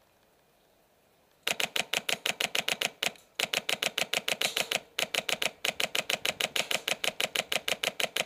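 Airsoft rifle firing long full-auto bursts, about ten shots a second, starting about a second and a half in, with brief breaks between bursts.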